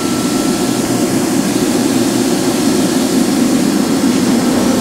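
Steady mechanical hum of a 1995 Toyoda CNC horizontal machining center running under power, with no clunks or knocks. A faint steady whine sits over it for the first second or so.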